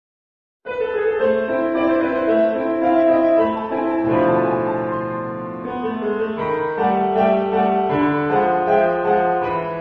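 Instrumental intro music with a melody of changing notes, starting after a short silence about half a second in.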